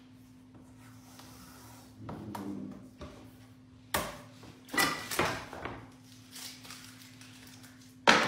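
Kitchen utensils and cabinetry being handled at a sink: scattered knocks and clatters, with one sharp, loud knock just before the end, over a steady low hum.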